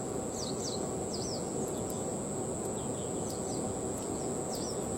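Outdoor ambience: small birds giving short, quick downward-sliding chirps, repeated every half second or so, over a steady high-pitched whine and a low, even rushing background noise.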